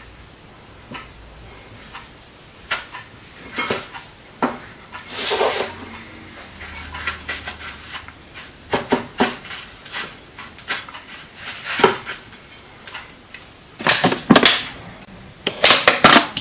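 Hands coating chicken pieces in beaten egg and breadcrumbs in metal bowls: scattered soft rustles, squelches and light clicks against the bowls, busier and louder near the end.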